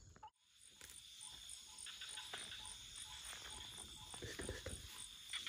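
Night crickets and other insects chirping faintly: a steady high trill with a short chirp repeating about twice a second. The sound drops out briefly just after the start.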